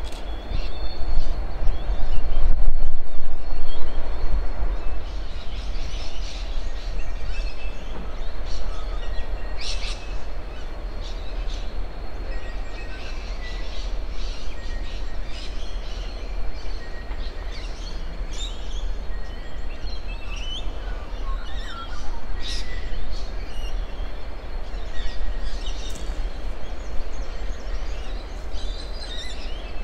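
Diesel-electric freight locomotives running as the stalled train gets moving again at walking pace, a steady low rumble with a louder surge about a second or two in. Birds chirp over it.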